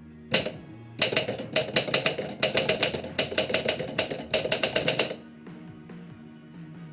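Typewriter typing: a single keystroke, then a fast run of key strikes lasting about four seconds that stops abruptly. Background music plays underneath.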